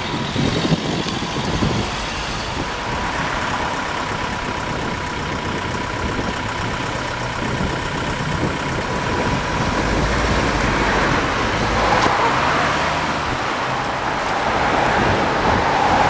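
Road traffic: cars driving past close by, a steady tyre and engine noise that grows louder in the second half.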